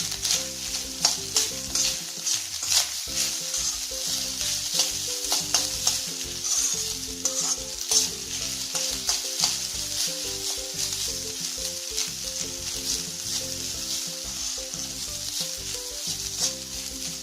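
Vegetable fried rice stir-frying in a hot pan on high heat: a steady sizzle, broken by frequent quick scrapes and knocks of the spatula against the pan as the rice is tossed with the sauce.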